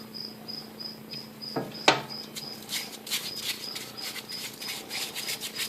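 A cricket chirping steadily in a fast, even rhythm over a faint low hum. There are a couple of sharp clicks, and from about three seconds in come rapid scratchy rubbing strokes.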